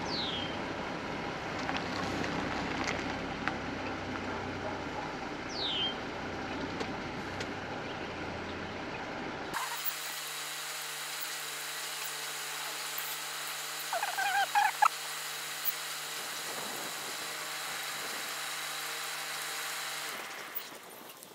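Outdoor hiss and rumble with two short falling bird whistles. The sound changes abruptly about ten seconds in to a steady low motor hum, with a brief louder call about fourteen seconds in.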